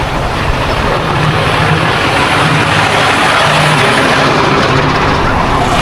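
Vehicle running along a road: a steady low engine hum under a loud, even rush of road and wind noise.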